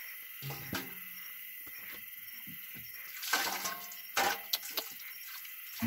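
Water sloshing in an aluminium basin as the basin is handled and set down on the ground, with a few short knocks and clicks about three to five seconds in.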